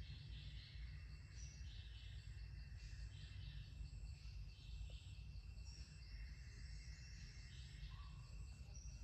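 Forest ambience: insects trilling with a steady high whine and a hiss that swells and fades in repeating pulses, with a few short bird notes, one of them lower near the end, over a steady low rumble.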